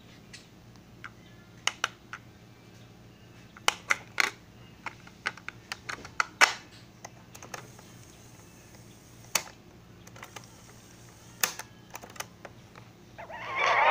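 Sharp hard-plastic clicks and clacks of a cassette tape being handled and seated in a cassette deck's tape well, scattered irregularly, the loudest about six and a half seconds in. Two more clicks come late as a deck key is pressed, and the tape's music starts playing just before the end.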